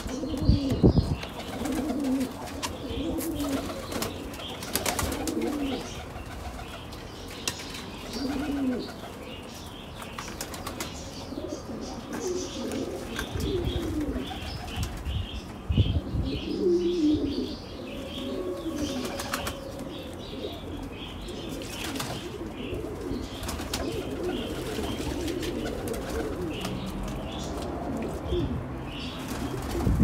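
Domestic pigeons cooing over and over, with a few flurries of wing-flapping, the loudest about a second in and again near sixteen seconds. Small birds chirp faintly in the background.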